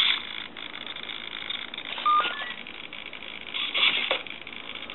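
RC buggy's power switch clicked on, then about two seconds in the electronic speed control plays a rising run of four short beeps as it arms. A brief buzz follows near the end, the steering servo twitching while the radio antenna is still retracted.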